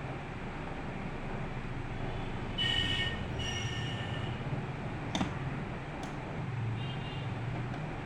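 Screws being fastened into a laptop's bottom panel: two sharp clicks about five and six seconds in over a steady low hum. Two brief high-pitched squeaks a few seconds in are the loudest sounds, with a fainter one near the end.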